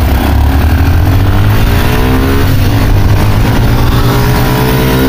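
Motorcycles, a Suzuki Gixxer and a Bajaj Discover 125, accelerating hard side by side in a race. The engine pitch rises, drops at a gear change about halfway, then rises again, with heavy wind buffeting on the microphone.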